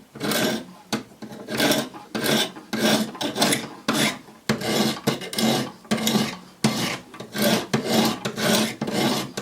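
80-grit diamond stones of a Wicked Edge guided knife sharpener rasping along the edge of a D2 steel knife blade in repeated strokes, about two a second. This is a coarse regrind of the blade's bevel.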